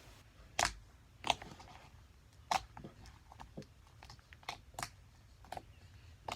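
Pink fluffy slime being pressed and stretched by hand, giving about a dozen sharp, irregular pops and clicks as trapped air breaks through.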